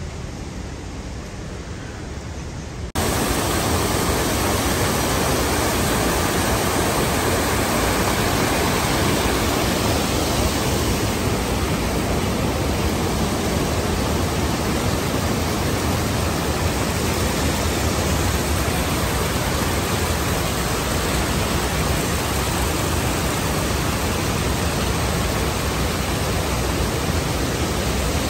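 Steady rushing of water from a small waterfall running down a rock face. It is quieter at first and jumps suddenly to a loud, even rush about three seconds in.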